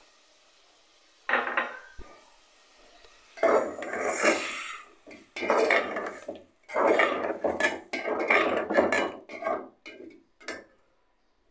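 A long steel spoon scraping and stirring in an aluminium cooking pot, mixing beef with tomatoes and yogurt. Repeated scraping strokes start a little over a second in and go on until near the end.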